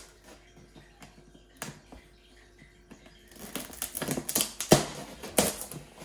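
Knife cutting through packing tape and cardboard: a few faint clicks at first, then from about three seconds in a quick run of scrapes, rips and knocks, the loudest a little before five seconds in.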